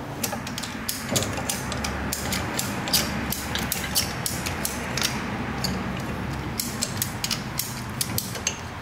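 Ratchet tie-down strap being cranked tight by hand: a string of irregular clicks from the ratchet's pawl, several a second.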